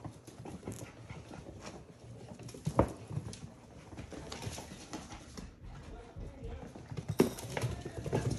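Young Portidoodle puppies' paws pattering and claws clicking on a hard wooden floor as they scamper and play, with a couple of sharper knocks, about three seconds in and near the end.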